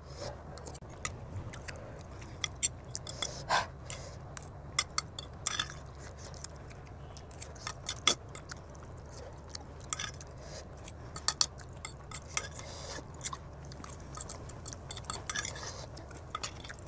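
Close-miked eating: a fork clinking and scraping on a plate, with chewing of noodles, in many small irregular clicks. A steady low hum runs underneath.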